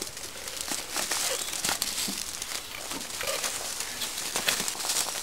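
Footsteps and bodies pushing through dry grass and leaf litter: a steady crunching, crackling rustle made up of many small snaps.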